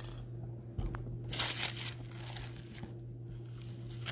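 Thin Bible pages rustling and crinkling as they are turned by hand, in a few separate rustles, the loudest about a second and a half in, over a faint steady hum.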